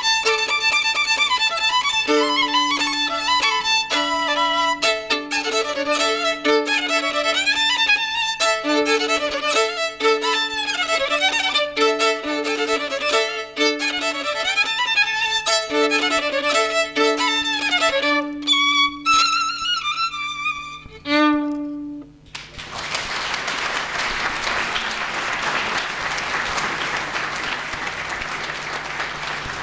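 Solo violin playing a lively tune, a melody over a recurring low held note, ending with a few short notes about three-quarters of the way through. The audience then applauds for the last several seconds.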